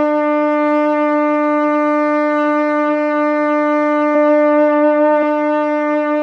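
French horn holding one long, steady note, evidently the A of the F–G–A pitch exercise (sounding concert D, about 290 Hz).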